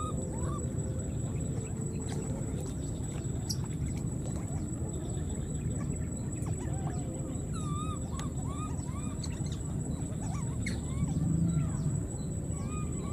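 Baby macaques giving short arched coo calls in runs of several at a time, over steady low background noise.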